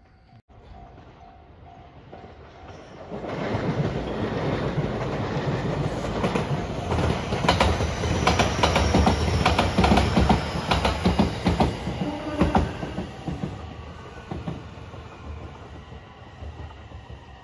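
JR West 227 series electric train passing close by: it swells in about three seconds in, its wheels clack rapidly over the rail joints, and a high whine falls in pitch as it goes past. The sound then fades as the train draws away.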